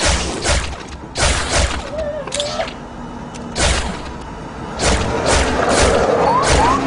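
A string of gunshots, about ten at uneven spacing, with two short rising whistles near the end.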